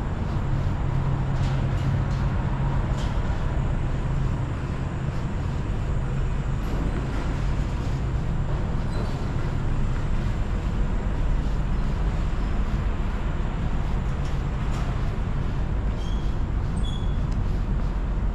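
Steady low rumble of city traffic, heaviest in the first few seconds, with a few faint clicks and a couple of short high chirps near the end.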